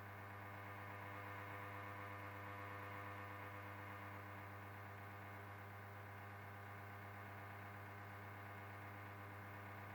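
Ariston Margherita washing machine giving a faint, steady low hum with a buzzy edge during its main wash.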